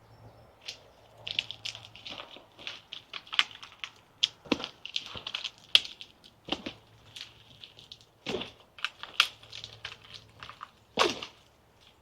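Leaves and twigs of a tree rustling and snapping in irregular crunches and sharp cracks, about a dozen louder cracks spread through, as someone climbs through the branches.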